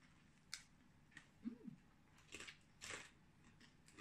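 Faint crunching and chewing of crispy pata, deep-fried pork knuckle, eaten by hand, with about four short crackles. A brief hummed voice sound about one and a half seconds in.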